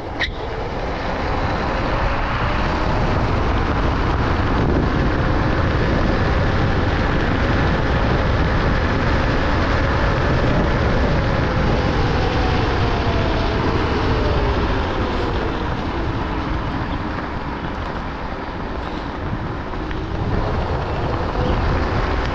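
Wolf King GT Pro dual-motor electric scooter riding along: a steady rush of wind and road noise, with a faint motor whine gliding slowly up and down in pitch. The rush grows louder over the first two seconds, eases a little late on and picks up again near the end.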